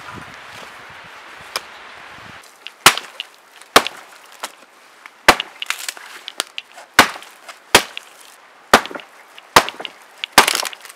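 A couple of seconds of rustling through a backpack, then an axe chopping into a dead standing tree: about ten sharp blows of steel on dry wood, roughly one a second, the trunk splintering.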